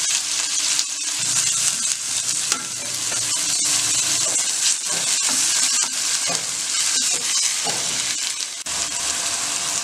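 Chopped onion sizzling steadily in hot oil in a steel kadai while a wooden spatula stirs it, with short scrapes and knocks of the spatula against the pan.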